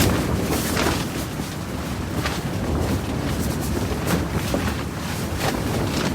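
Strong wind blowing hard against the microphone with a steady low rumble, broken by short sharp snaps every second or so.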